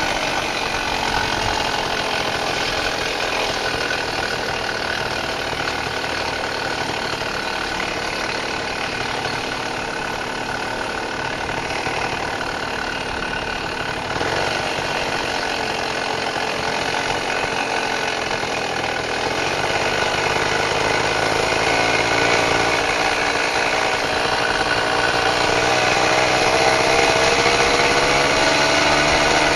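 Tomos Bullet moped's small two-stroke single-cylinder engine running at low speed as it rides along. Over the last several seconds it gets louder and rises in pitch as it speeds up.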